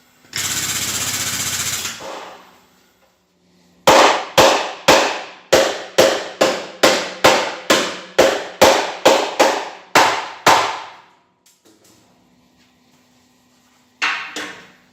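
A short burst of steady hissing noise, then a hammer striking car body metal about sixteen times, a little over two blows a second, each blow ringing briefly, with one more blow near the end.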